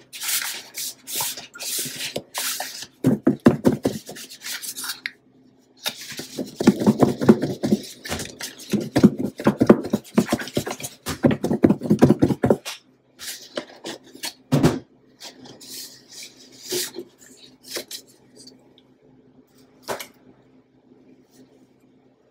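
Chicken pieces shaken in seasoned flour inside a lidded bowl: a run of rattling, thumping shakes for about twelve seconds, with a short pause around five seconds in. After that come scattered lighter knocks.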